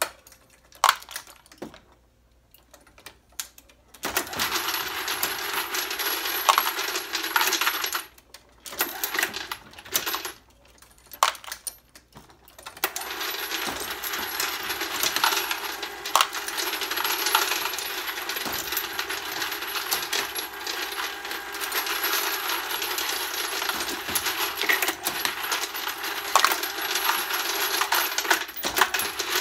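Hornady case feeder running, 9mm brass cases clattering in its hopper over a steady motor hum, with the Hornady Lock-N-Load AP progressive press being cycled. It stops and starts a few times in the first dozen seconds, then runs steadily.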